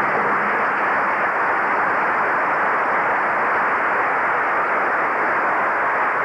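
Steady, even hiss of analog videotape static, with no voices or music.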